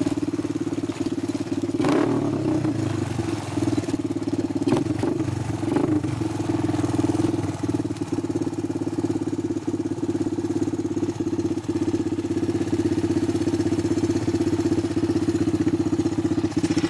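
Honda 250EX ATV's single-cylinder four-stroke engine running at a steady pitch through a White Brothers aftermarket full exhaust, with a few short knocks in the first six seconds.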